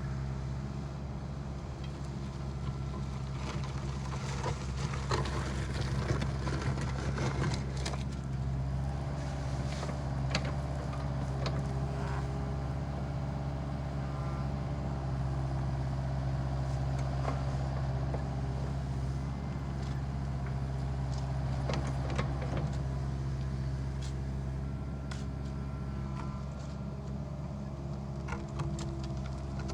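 Excavator's diesel engine running steadily, with scattered knocks and clanks from the machine working.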